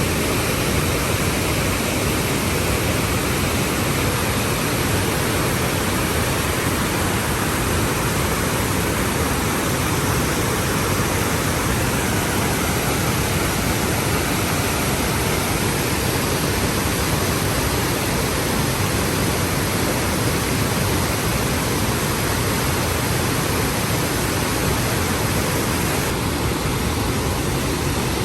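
Cane Creek Falls rushing steadily, a constant even wash of falling water.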